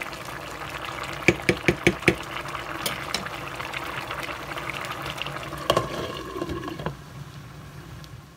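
A pot of mustard and turnip greens with smoked neck bones at a steady boil, bubbling. About a second in there is a quick run of five taps as the wooden spoon is knocked against the pot. Near six seconds there is a clink with a short ring as the glass lid goes on, and the bubbling is quieter after that.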